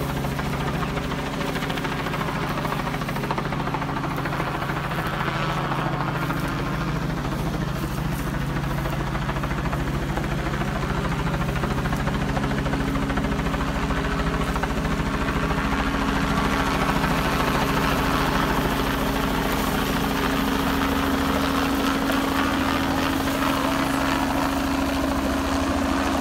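Helicopter flying low overhead: a steady rotor and engine sound with a fast blade beat, growing a little louder in the second half.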